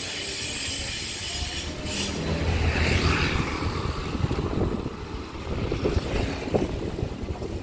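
A motorcycle's engine as it rides past and away down the road, loudest about three seconds in. Wind rumbles on the microphone throughout.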